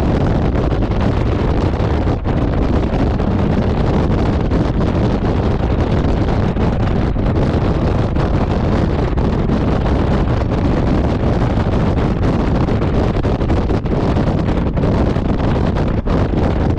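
Steady, loud wind rush on the microphone of a Honda Gold Wing touring motorcycle riding at motorway speed, with the bike's running and road noise underneath.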